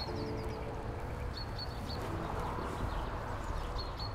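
Small bird chirping in short groups of quick, high chirps over a low steady rumble, with a soft held chord fading out about a second in.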